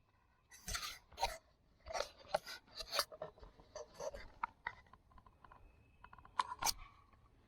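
Irregular close rustling and scraping, a dozen or so short crunchy scrapes at uneven intervals.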